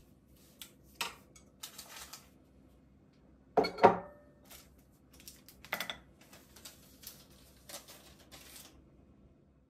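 A clear glass bowl with a utensil inside is set down on a table with a knock and a brief glassy ring, among small clinks and rustles of tableware being arranged. Another sharp clack follows a couple of seconds later.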